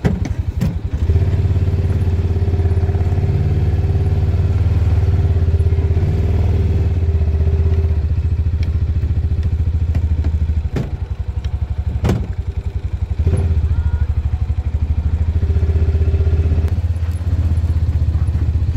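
Side-by-side utility vehicle's engine running steadily at low speed on a rough dirt track, easing off twice. A few sharp knocks and clatter from bumps, the loudest about two-thirds of the way through.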